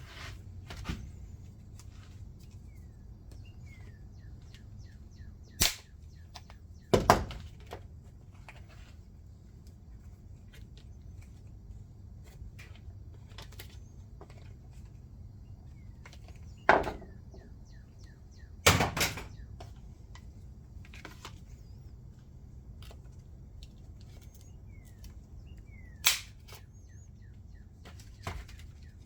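Scattered knocks and clicks from handling a screwdriver set in its packaging, five of them sharper and louder, over a steady low hum.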